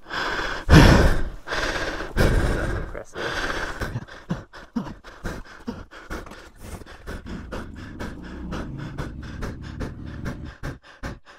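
A man heaving and gasping for breath, sick from heat and exhaustion: three loud heaves in the first three seconds, then a run of quicker, quieter breaths.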